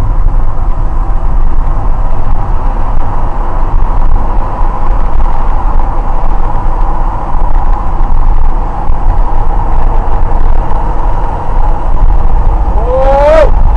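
Steady road and engine noise inside a car cruising on a highway at about 100 km/h: a constant rumble with a hum. Near the end a short pitched sound rises and then falls away.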